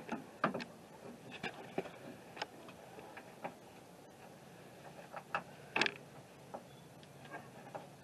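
Irregular light clicks and taps of hand tools and small metal parts being handled while a truck's handle and cable mechanism is put back together, with a louder clack about six seconds in.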